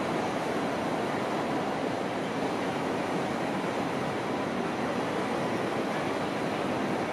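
Train passing, a steady rushing noise that holds even throughout.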